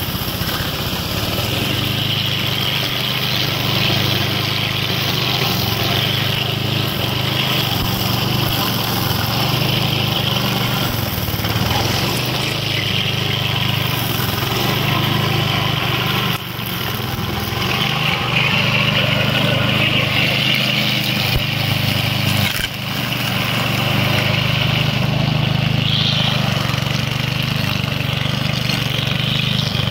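Cub Cadet walk-behind mower's small petrol engine running steadily under load as it cuts through tall dry grass, the engine hum mixed with the noise of grass being cut. The sound dips briefly twice about two-thirds of the way through.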